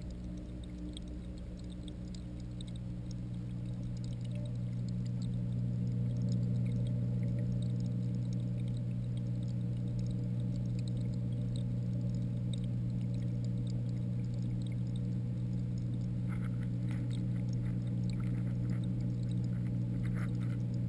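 Steady low hum of a reef aquarium's water pumps and moving water, picked up by a camera held underwater in the tank, growing louder over the first several seconds. A scatter of faint clicks near the end.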